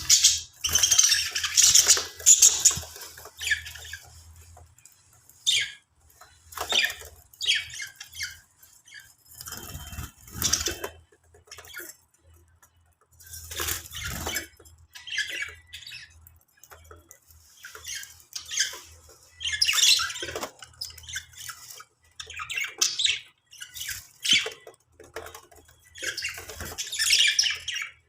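Budgies chattering and squawking in irregular bursts of high calls, with short pauses between them.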